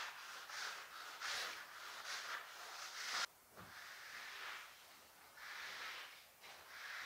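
Rubber floor squeegee pushed in short strokes across wet floor tiles, a swish about twice a second. The sound drops abruptly a little after three seconds in, then the strokes carry on softer and slower.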